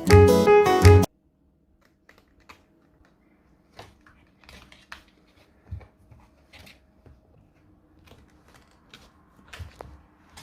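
Piano music that cuts off abruptly about a second in, followed by faint, scattered light clicks and taps over a low steady hum.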